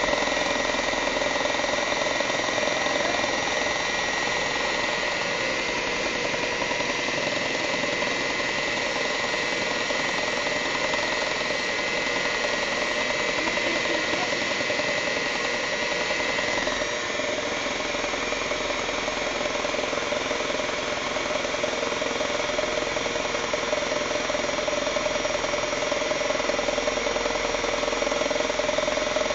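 Electric hand mixer running steadily, its beaters whipping a creamy mixture in a bowl. The motor's high whine changes about halfway through.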